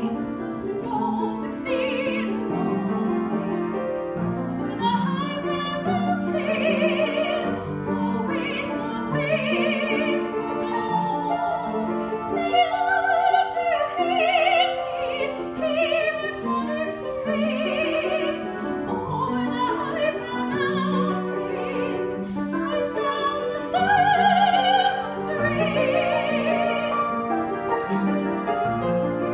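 A woman singing a classical art song in full operatic voice with vibrato, accompanied on a grand piano.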